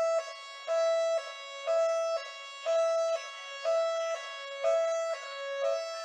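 London police car siren in its two-tone hi-lo pattern. A higher and a lower note alternate, each held about half a second, so the pair repeats about once a second.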